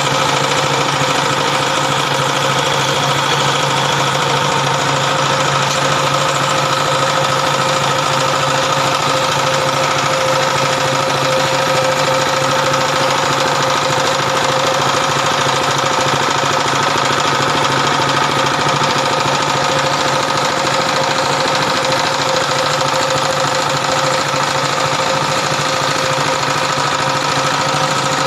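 Broom-handle dowel-making machine running steadily, a constant motor hum and whine with a rushing noise that does not change.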